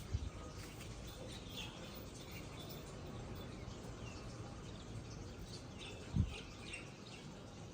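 Birds chirping faintly, short scattered high notes over a low background rumble, with a dull low thump about six seconds in.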